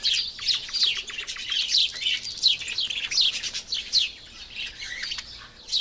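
Small birds chirping: a dense run of quick, high chirps that sweep downward in pitch and overlap one another.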